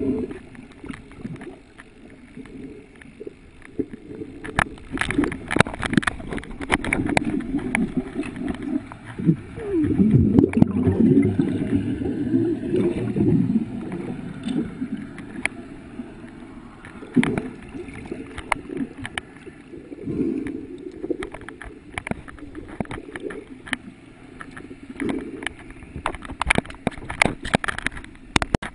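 Muffled water sound picked up by a camera held underwater: irregular low gurgling and swishing of water against the housing, with scattered sharp clicks and crackles. The gurgling swells louder for a few seconds about ten seconds in.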